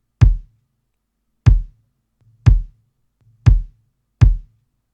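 Layered kick drum from an acoustic-kit sample, its sub and body blended, playing back in a loop: five short, deep hits roughly a second apart, each dying away quickly, the last two closer together. The sub's tail has been trimmed short.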